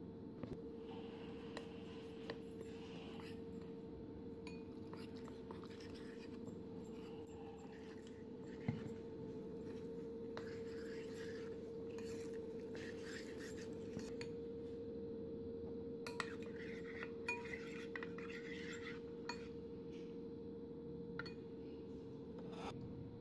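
Metal spoon stirring and scraping batter in a ceramic bowl, with scattered light clinks of the spoon against the bowl. A steady hum runs underneath.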